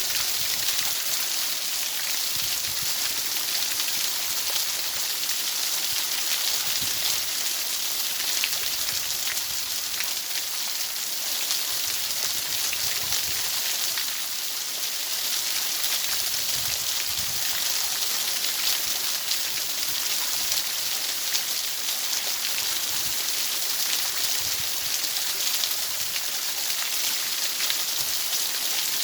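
Steady, even hiss like rain, strongest in the high pitches and thin in the lows, with a fine crackle through it and no change in level.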